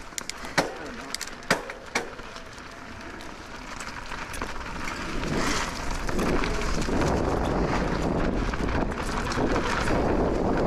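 Electric mountain bike riding a rough dirt trail: a few sharp knocks and clatters from the bike in the first two seconds, then tyre roll and wind noise on the microphone that build up about four seconds in as speed picks up.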